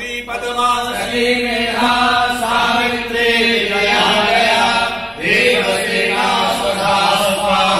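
Devotional mantra chanting by voices in a temple, sung in long flowing phrases over a steady held low tone, with a fresh phrase beginning about five seconds in.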